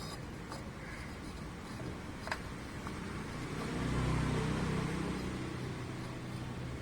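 A motor vehicle's engine rumble swells and fades as it passes, over a steady low hum. A single sharp metallic click comes a little over two seconds in.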